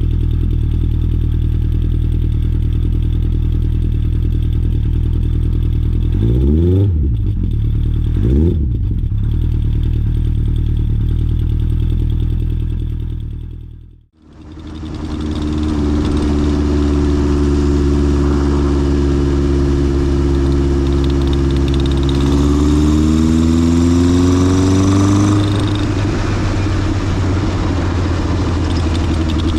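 Honda CB900F's air-cooled inline-four engine idling, blipped twice briefly. After a short fade out and back in, it idles again, then is held at slightly raised revs for a few seconds before dropping back to idle.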